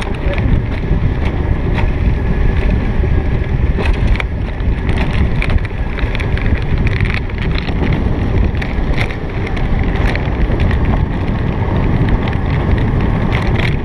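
Alpine coaster sled running fast down its steel rails: a steady rumble of the wheels and wind buffeting the microphone, with frequent short clicks and rattles.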